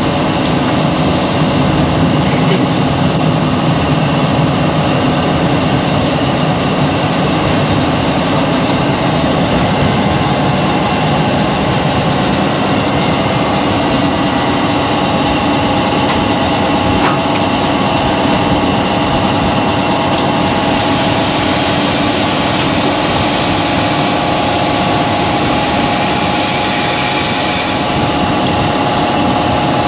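Class 40 diesel-electric locomotive's English Electric 16-cylinder engine running under way, heard from inside the cab as a loud, steady drone. A hiss comes in about two-thirds of the way through and stops shortly before the end.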